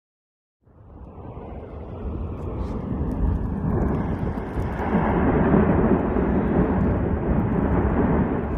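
Deep rumbling roar of Fuego volcano's explosive eruption, starting about a second in and swelling over a few seconds before holding steady.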